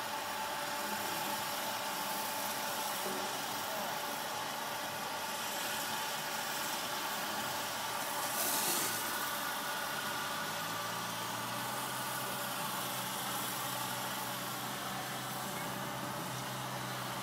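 Snowmaking cannon running with a steady mechanical hum and hiss; a deeper hum joins about ten seconds in. A brief hiss rises over it a little past the middle.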